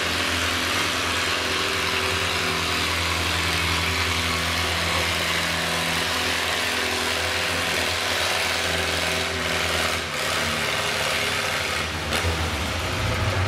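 Farmall tractor engine running steadily under load as it pulls a weight-transfer sled down a dirt pulling track. Its level dips briefly twice near the end.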